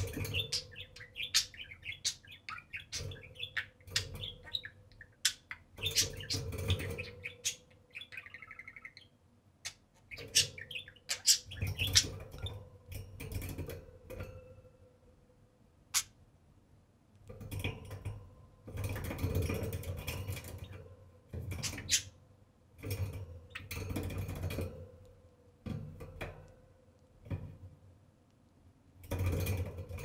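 A pair of budgerigars chirping and chattering in short, irregular spells, mixed with many sharp clicks and taps.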